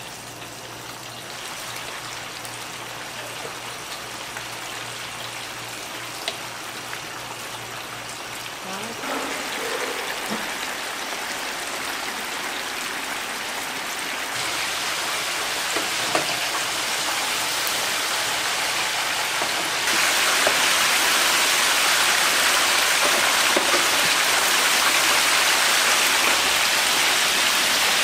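Chicken pieces deep-frying in a stainless fryer of hot oil, a steady bubbling sizzle that grows louder in steps, about a third of the way in, around the middle and again about two-thirds in.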